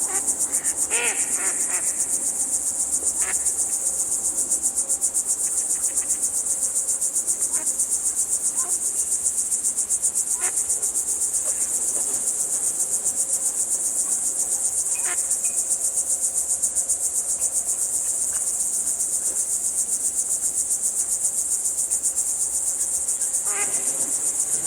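A steady, high-pitched, fast-pulsing insect chorus, with a few short, scattered duck quacks, mallards among them, in the background.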